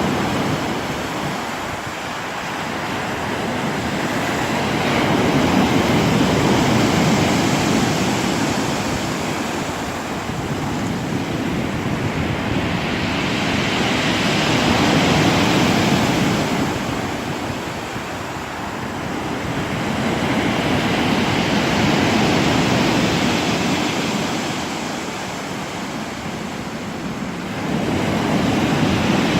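Black Sea surf breaking on the shore, a steady rush of water that swells and falls back with each wave every several seconds.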